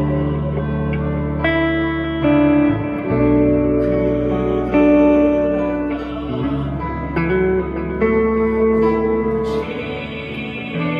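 Instrumental music: a melody of plucked, guitar-like notes over long held bass notes.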